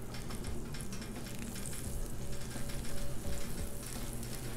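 Butter melting and sizzling on a hot Blackstone flat-top griddle, at about 375°F, as a metal spatula pushes it across the steel surface. The sizzle is an even hiss with faint scrapes and ticks from the spatula.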